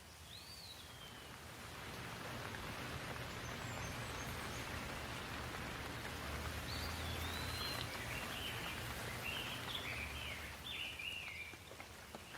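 Steady rain falling, growing louder about two seconds in, with a songbird calling over it: one falling whistle at the start, then a run of short chirping notes through the second half.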